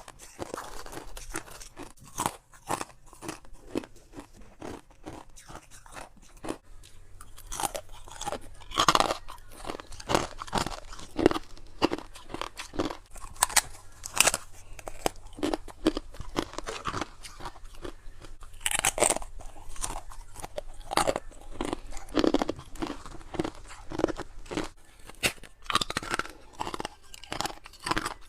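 Humidifier-tray ice coated in freezer frost being bitten and chewed: a run of irregular, crisp crunches, some bites much louder than the rest.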